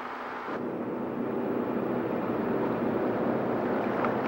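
High-pressure water hoses spraying onto beach rocks to wash off crude oil: a steady rushing hiss of water that swells up about half a second in and holds.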